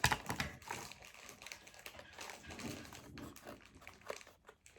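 Plastic toy packaging crinkling and rustling as it is handled, in a run of faint irregular crackles and clicks, a little louder at the start.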